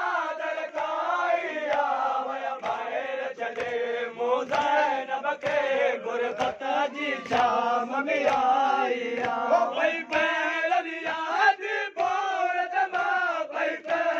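Crowd of men chanting a Muharram noha in unison, with rhythmic matam: sharp open-hand slaps on the chest, about one a second, keeping time with the chant.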